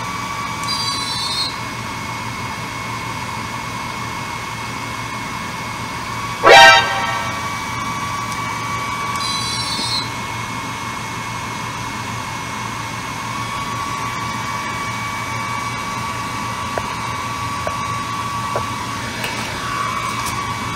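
Homemade 3D-printed 30 W laser running while it fires at a paper bag: a steady whirring hum with a high-pitched whine. About six and a half seconds in there is one short, very loud tone that rises in pitch.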